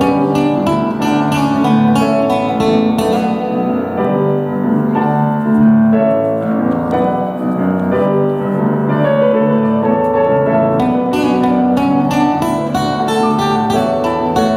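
Acoustic instrumental music played live: quick plucked and strummed chords, easing about three seconds in into a softer passage of held notes, then picking up again with quick chords near the end.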